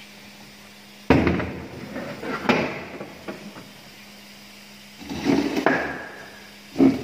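Knocks and bangs of a metal sliver can being handled under a draw frame's coiler: a loud knock about a second in, another shortly after, a few light clicks, a cluster of knocks around five seconds in and a heavy thud near the end. A faint steady hum is heard before the first knock.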